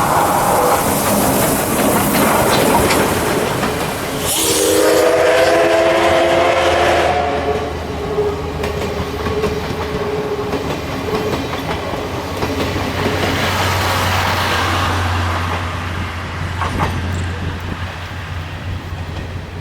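D51 steam locomotive running past with its train, the rumble and rail clatter going on throughout. About four and a half seconds in it blows its steam whistle once, a chord-like blast lasting about two and a half seconds that trails away over the next few seconds.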